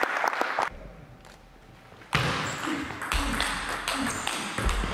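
Table tennis ball clicking off the bats and the table in quick succession, a lull of about a second and a half, then clicks again with short shouts from the players.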